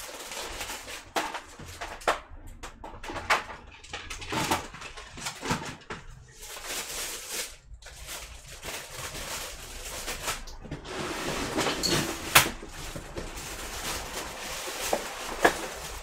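Rummaging through stored parts by hand: irregular clicks, knocks and rustling as items are picked up, shifted and put down, with one sharp knock about twelve seconds in.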